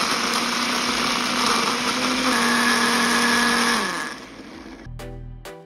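Ninja blender running with its single-serve cup, puréeing chilies, onion and stock into a liquid marinade. The motor runs at a steady speed, then winds down and stops about four seconds in. Background music comes in near the end.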